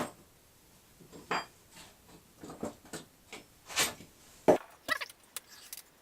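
Light metallic clinks and knocks of hand tools and small engine parts being handled on a motorcycle's cylinder head, a dozen or so short, irregular taps, the loudest about four and a half seconds in.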